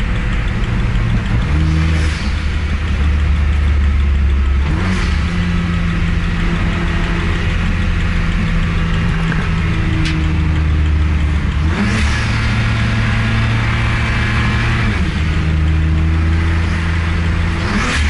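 A performance car's engine running hard at high level, its note holding steady for a few seconds at a time and then stepping to a new pitch, with a short sharp noise at each change.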